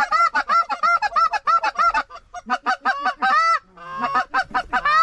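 Canada goose honking and clucking: many quick calls in a row, with a short break about two seconds in and a lower, wavering call near the end.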